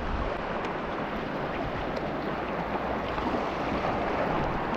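Steady seaside noise of wind and water, an even wash with no engine or voice in it.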